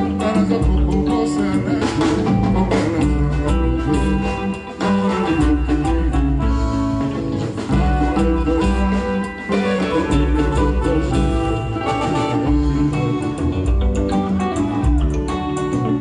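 Congolese rumba band music: singing over electric guitars and a drum kit, with a steady dance beat.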